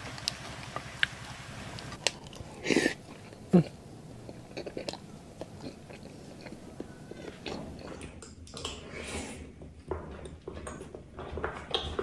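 Chewing and biting sounds of people eating grilled balut (duck egg embryos): soft scattered clicks with a few short louder bursts, and a change in the background about eight seconds in.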